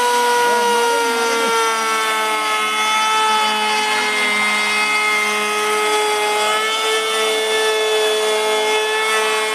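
Endico electric plunge router running and cutting into a wooden plank. Its motor gives a steady high-pitched whine that sags a little in pitch over the first few seconds as the bit takes load, then holds.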